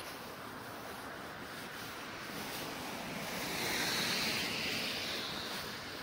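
Steady outdoor hiss of road traffic, with the tyre hiss of a passing car swelling to its loudest about four seconds in.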